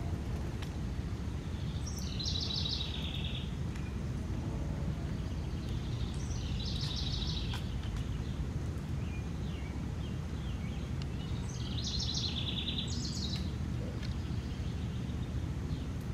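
A small songbird singing a short, high, trilled phrase three times, several seconds apart, over a steady low outdoor rumble.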